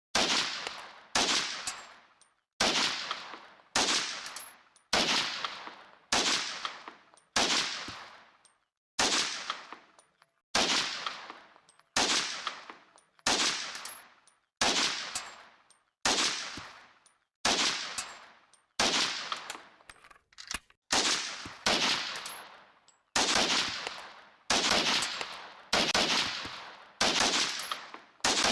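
M1 carbine firing single shots in a slow, steady series, about one every second and a half, around twenty in all. Each sharp crack is followed by a ringing echo that fades away before the next shot.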